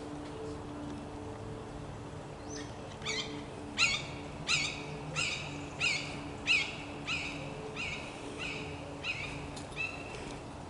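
An animal calling in the woods: a series of about a dozen ringing calls, roughly one and a half a second, each dipping in pitch at its start. The calls begin about two and a half seconds in and stop near the end.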